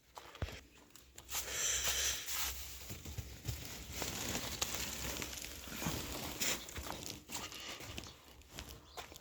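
Irregular rustling and crinkling noise with scattered sharp clicks, starting about a second in and easing off near the end.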